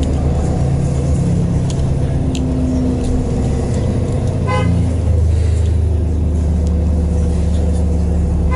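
Inside a New Flyer XDE40 diesel-electric hybrid bus with a Cummins ISL9 diesel engine: steady low drivetrain drone with engine tones, growing louder about five seconds in. A short horn toot sounds about halfway through.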